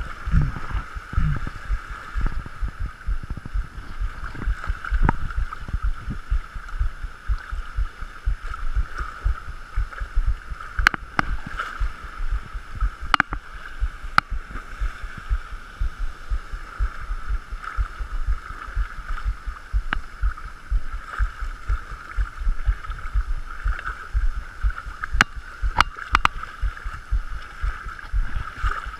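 Shallow seawater sloshing and gurgling as a person wades through it, with a fast, uneven run of low knocks and a few sharp clicks.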